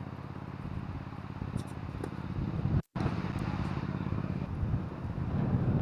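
Strong gusting wind buffeting the action camera's microphone, a steady low rumble that cuts out for an instant about three seconds in.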